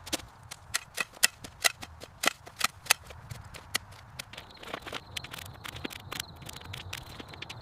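A quick series of sharp clicks and knocks, about three or four a second for the first three seconds, then fainter and sparser. A faint steady high tone starts about four seconds in.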